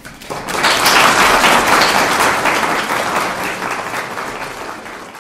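Congregation applauding, swelling quickly within the first second and then slowly fading.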